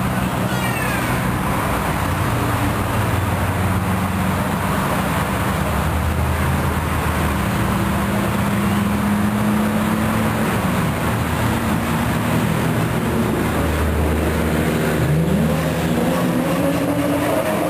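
Several cars' engines running at speed around a racing circuit, their notes overlapping steadily; near the end one engine note rises as a car accelerates.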